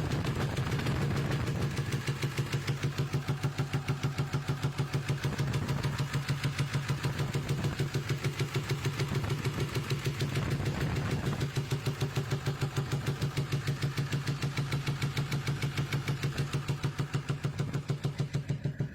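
Ford 7.3 L Power Stroke V8 turbodiesel idling with an even, rapid popping pulse. The owner takes the popping for backfiring through the air intake.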